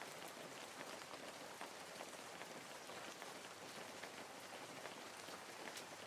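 Steady rain, a faint even hiss with scattered drop ticks.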